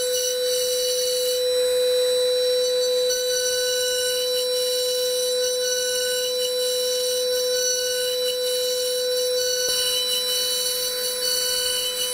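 High-speed Datron CNC milling spindle whining at one steady high pitch while the end mill cuts foam, over a constant airy hiss.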